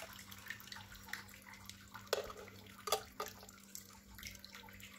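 Light clicks and scrapes of a metal utensil against the non-stick plates of an electric sandwich-style waffle maker as cooked waffles are lifted out, over a faint crackling hiss and a low steady hum. The sharpest clicks come about two and three seconds in.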